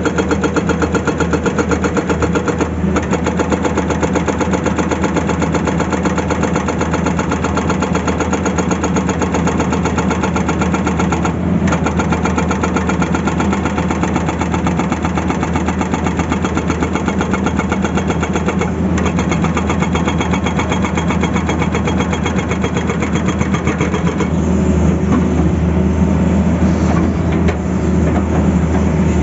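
Tata Hitachi excavator's diesel engine running under load while its hydraulic breaker hammers in a rapid, steady rhythm, with brief breaks a few times.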